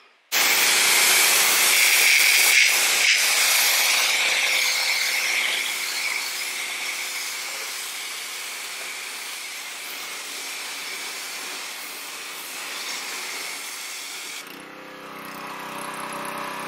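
Pressure washer spraying a fan jet of water onto a painted truck hood, rinsing off pre-wash foam: a loud, steady hiss that starts abruptly and slowly gets quieter. Near the end the spray stops and a lower steady hum remains.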